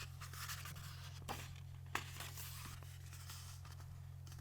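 Quiet room tone: a steady low electrical hum with faint hiss, broken by a few soft clicks and rustles, two of them a little more distinct about a second and a half and two seconds in.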